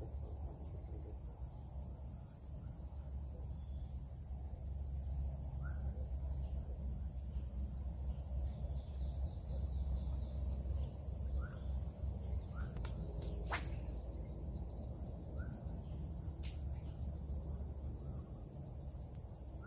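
Steady high-pitched chorus of crickets and other insects over a low rumble, with a few short bird chirps and two sharp clicks in the second half.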